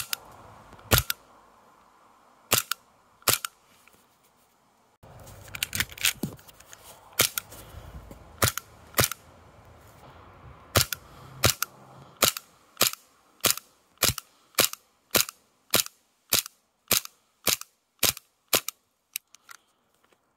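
A string of single shots from an Armorer Works VX0200 gas-blowback airsoft pistol, a Glock 18C copy, each a sharp crack. The shots are irregular at first, then come evenly at about two a second, and the last few are fainter.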